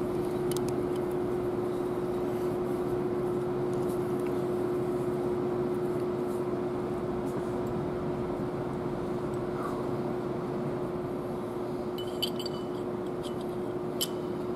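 Steady mechanical hum of shop machinery with one constant pitched tone. Over it come a few light metallic clicks of a hand tool on the engine's cylinder head, once near the start and several times near the end.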